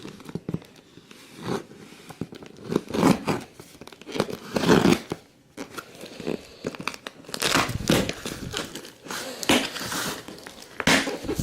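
A cardboard box being cut open with a knife and pulled apart: irregular tearing and crinkling.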